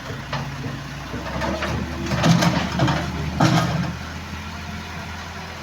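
Engine idling steadily, a low hum, with louder irregular sounds between about one and a half and four seconds in.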